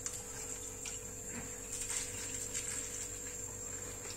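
Quiet steady background hum and hiss with a few faint light clicks.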